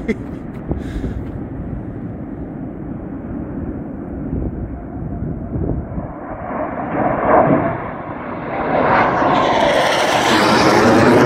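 USAF F-15 Eagle fighter jet's twin turbofan engines: a distant rumble that grows from about six seconds in and swells into a loud rush as the jet passes low overhead near the end, with a sweeping, phasing whoosh.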